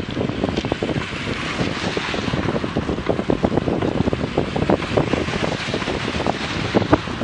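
Wind buffeting the microphone of a bicycle-mounted camera at about 30 km/h, over the steady hiss of tyres on a wet road. Many small irregular taps run through it.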